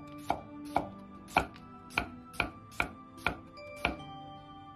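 Chinese cleaver slicing cucumber into rounds on a thick round wooden chopping block: about eight crisp chops at a steady pace of roughly two a second. Faint background music underneath.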